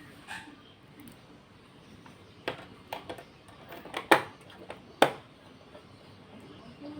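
A few sharp separate clicks and knocks of small parts and a screwdriver being handled while an all-in-one PC's case is screwed back together, the loudest two about four and five seconds in.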